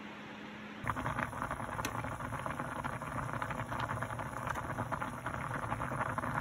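Pasta in a pot of water at a rolling boil: a dense crackling bubbling that starts suddenly about a second in, after a quieter steady hiss with a low hum.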